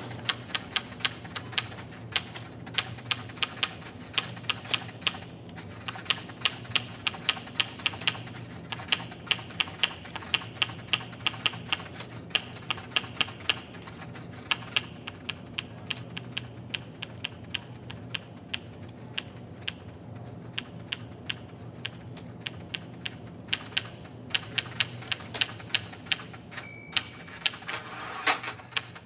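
Typewriter keys striking in quick runs of several clacks a second, with short pauses between runs, and a short ringing tone near the end.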